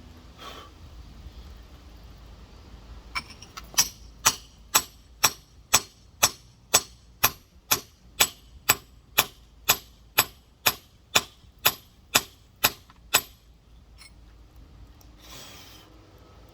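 Rock hammer tapping on a giant geode, about twenty sharp, evenly spaced strikes at roughly two a second, shearing the stone around its outside so it can be split.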